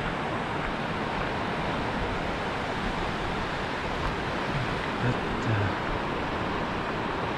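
A river in flood, its fast-flowing floodwater rushing steadily.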